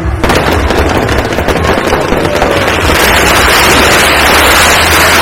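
Fireworks crackling: a dense run of rapid pops and crackles that swells about three seconds in into a loud, continuous hissing crackle.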